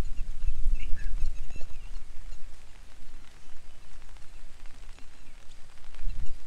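Outdoor ambience in very light rain: a low, uneven rumble, strongest in the first two seconds and again near the end, over a faint hiss, with a few faint bird chirps about a second in.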